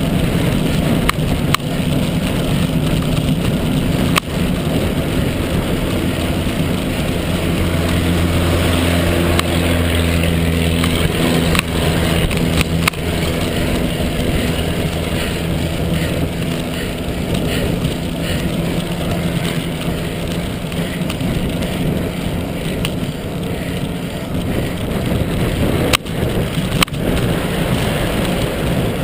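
Wind rushing over a bicycle-mounted camera's microphone while riding at speed in traffic, with steady road noise. From about seven seconds in, the engine hum of a passing motor vehicle rises for several seconds and fades. A few sharp knocks are heard, two of them close together near the end.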